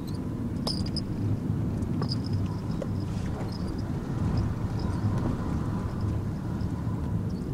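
Nissan NV200 van driving slowly, heard from inside the cabin: a steady low engine and road rumble, with a few light clicks and rattles.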